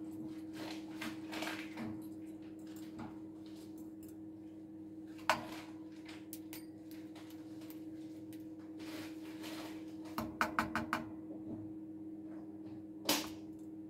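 Cockatiel making knocking noises in imitation of household knocks: a single sharp knock, then a quick run of about five or six knocks, then one more near the end.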